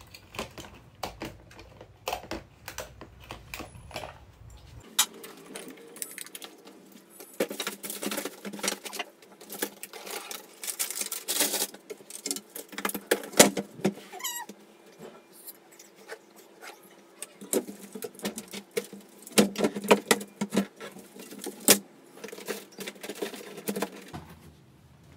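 Toys and small household items knocking and rattling as they are handled and packed away: irregular clicks and clatters coming in quick clusters, with one short falling squeak about two-thirds of the way through.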